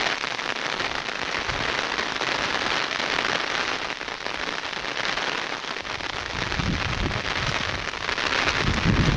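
Heavy rain falling, a steady dense hiss. About two-thirds of the way in, a low rumble sets in and grows louder toward the end.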